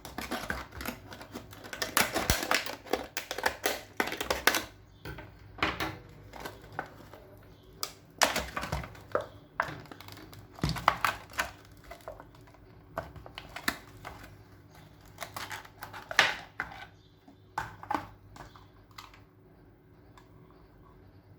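Irregular clicks, taps and clacks of a Dymo embossing label maker and its plastic packaging being handled, with a dense run in the first few seconds, then spaced-out clicks that thin out toward the end.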